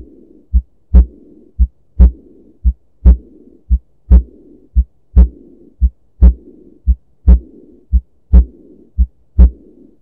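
Sound-enhanced stethoscope recording of heart sounds with the diastolic murmur of aortic regurgitation. Paired heart sounds come about once a second, and a blowing murmur fills the gap after each beat, starting at the second heart sound.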